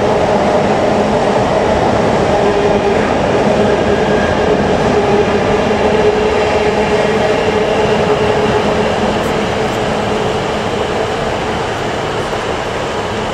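Container wagons of a long intermodal freight train rolling past at speed: a steady rumble of wheels on rail with a faint steady whine. It eases off over the last few seconds as the end of the train draws away.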